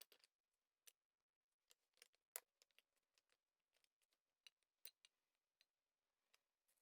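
Faint scattered clicks and light clinks of small parts and tools being handled on a workbench during a transfer case rebuild.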